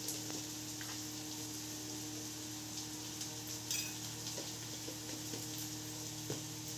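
Steady sizzle of food frying in hot oil in a kadhai, with a few faint clinks of a steel spoon in a small steel bowl.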